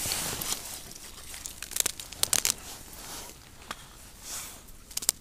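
Fishing line crackling as it is pulled in, in irregular crisp clicks, with a cluster of them about two seconds in.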